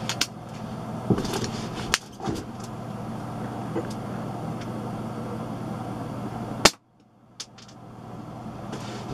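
Umarex Buckmark .177 spring-piston air pistol: a few sharp handling clicks early on, then one sharp shot about two-thirds of the way through as a pellet is fired through a chronograph.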